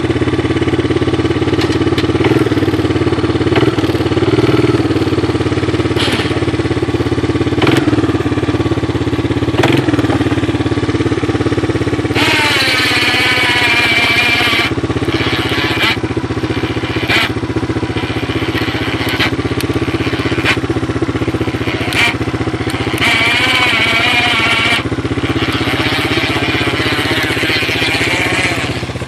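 Four-wheeler engine idling steadily while the electric winch on its front runs in several bursts with a wavering whine, winding in cable to raise wooden forks carrying a pallet. The longest runs come around the middle and about two-thirds of the way through. A few knocks sound in the first third.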